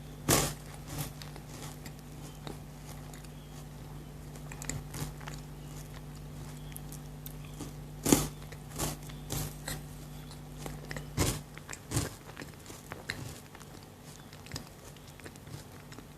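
Close-up biting and chewing of crunchy chocolate: sharp snaps about half a second in, again around eight seconds and twice near eleven to twelve seconds, with softer crunching between.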